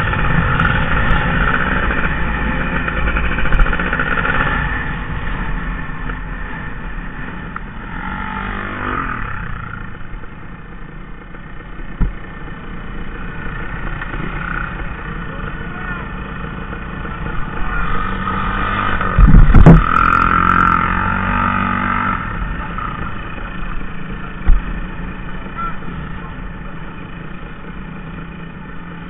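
Dirt bike engine idling and running at low throttle, heard from the rider's helmet, with a brief change in engine pitch about eight seconds in and a loud rumble about nineteen seconds in.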